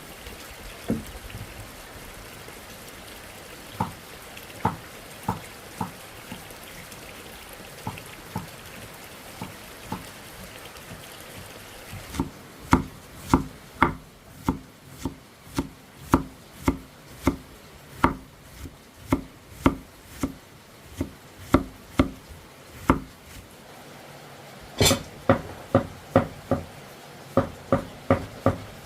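Chopping with a blade on wood: a few scattered knocks, then a steady run of about two chops a second, with one louder strike near the end followed by a few quicker chops.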